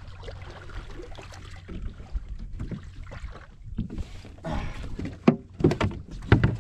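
Low steady rumble of wind and water around a fishing kayak while a hooked fish is pumped and reeled in. From about four and a half seconds in comes a quick run of sharp knocks and splashes as the fish is brought up beside the kayak.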